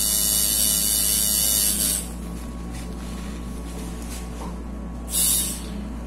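Coil tattoo machine buzzing during light shading passes, cutting off about two seconds in, then running again in one short burst about five seconds in. A steady low mains hum continues underneath.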